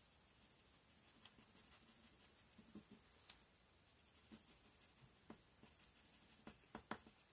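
Pencil being drawn across paper: faint, short scratchy strokes and ticks at irregular intervals, coming closer together near the end, against a near-silent room.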